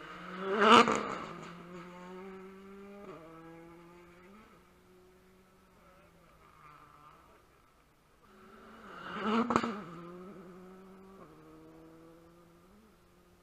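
Two rally cars go by at speed one after the other, about eight and a half seconds apart. Each engine peaks loudly as the car passes close by, then fades as it pulls away down the road, its pitch stepping down twice at gear changes.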